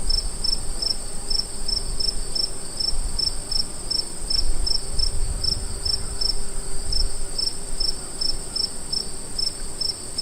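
Crickets chirping: a regular chirp repeating about three times a second over a continuous high-pitched trill, with a low rumble underneath.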